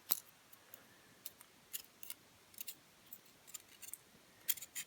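Scattered small metallic clicks and ticks of tweezers working a driver pin out of a Union rim cylinder's pin chamber, with a sharper click at the start and a quick run of clicks near the end.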